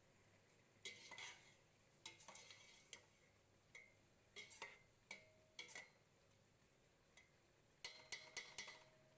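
A spoon scraping and clinking against the side of a steel pot as soaked rice in stock is gently stirred, faint, with short scrapes every second or so and a quick run of them near the end.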